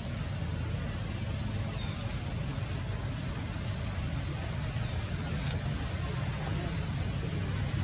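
Steady outdoor background rumble with an even hiss, with a few faint, short high-pitched chirps scattered through it.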